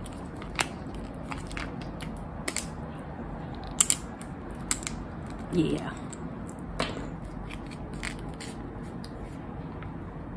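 Plastic screw cap of a smoothie squeeze pouch being twisted open by hand: scattered sharp clicks and crinkles of the cap and foil pouch, with a brief hum of the voice about five and a half seconds in.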